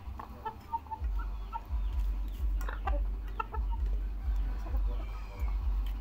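Chickens clucking softly while they feed, with a few sharp taps as beaks peck rice from metal pots, over an uneven low rumble.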